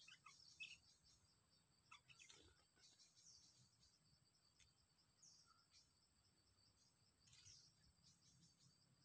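Faint bird chirps, a few short scattered calls, over a steady high-pitched insect drone.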